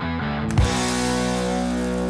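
Background rock music with guitar: a held chord, with a new chord struck about half a second in.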